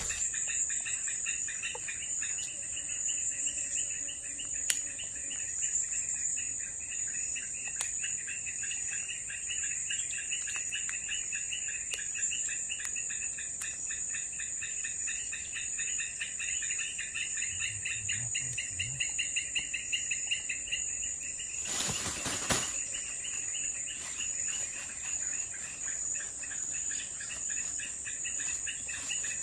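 Insects chirring steadily in dense vegetation: a high continuous drone over a fast pulsing trill. About 22 seconds in, a brief noisy rush sounds over them.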